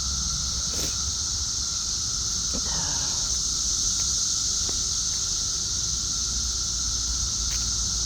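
Chorus of periodical cicadas, a steady, unbroken droning hiss from many insects at once.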